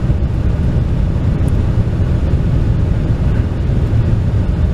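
Steady low wind rumble buffeting the microphone.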